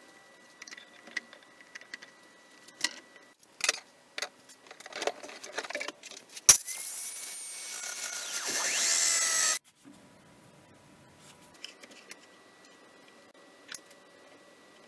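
Small clicks and knocks of a screwdriver working the clamp screws. About halfway through, a power drill starts with a sharp hit, runs for about three seconds and cuts off suddenly. A few faint handling clicks follow.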